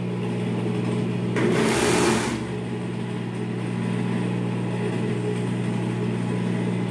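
Industrial overlock sewing machine: its motor hums steadily, and about a second and a half in the machine runs in a short burst of stitching lasting under a second.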